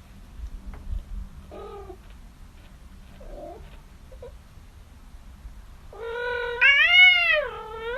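Domestic cat meowing: a few faint short calls in the first half, then a long, loud, drawn-out meow in the last two seconds that rises and falls in pitch.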